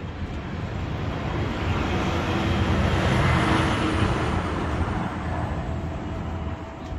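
A road vehicle passing by, its tyre and engine noise swelling to a peak about halfway through and then fading away.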